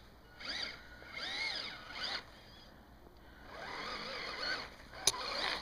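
Small electric motor of an RC snowmobile whirring in about four short bursts, each whine rising and falling in pitch as the throttle is blipped, on a first powered test. A sharp click comes near the end.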